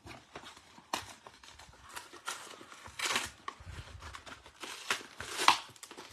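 Plastic blister-pack packaging of baseball trading cards being opened and handled: scattered crinkling, tearing and clicks, the loudest about five and a half seconds in.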